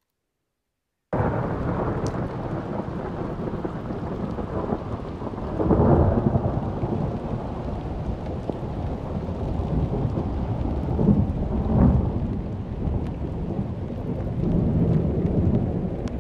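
Loud, low rumbling noise that starts abruptly about a second in and swells twice, about halfway and again near three quarters of the way through.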